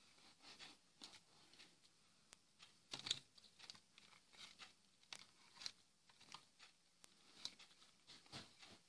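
Faint handling noise: light rustling and small clicks as a wiring harness with plastic connectors is moved about in the hands, with one sharper click about three seconds in.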